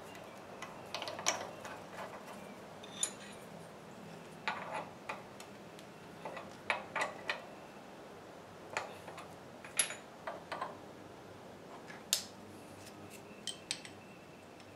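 A string of irregular light metallic clicks and clinks as a drill press chuck is turned by hand and a steel tap wrench and Acme tap are handled.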